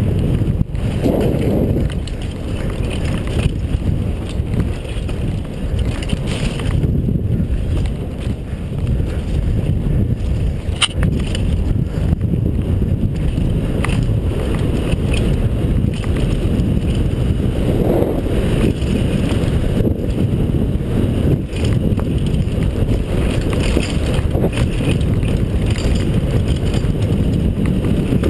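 Downhill mountain bike running fast over a forest dirt trail: a steady loud rumble of wind buffeting the action-camera microphone mixed with tyre and frame rattle, with a few sharp knocks as the bike hits bumps.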